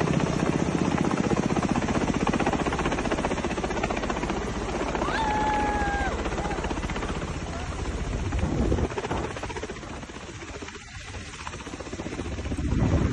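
Helicopter flying low overhead, its rotor blades chopping fast and steadily, loudest for the first nine seconds or so, then fading. A brief whistle-like tone sounds about five seconds in.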